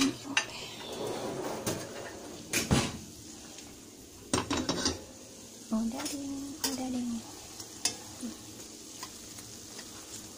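Ceramic plates and dishes clattering as they are set into a dishwasher rack, then odading dough sizzling in hot oil in a stainless steel wok while tongs click against the pan. A short low hum sounds once, a little past the middle.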